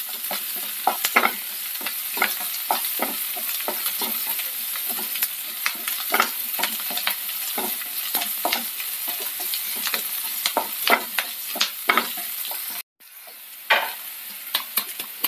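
Shallots, garlic, ginger and curry leaves frying in coconut oil in a ceramic-coated frying pan, sizzling steadily while a wooden spatula stirs them, scraping and tapping the pan several times a second as the shallots are sautéed until soft. Near the end the sound cuts out for a moment and the stirring stops, leaving a quieter sizzle with only a few taps.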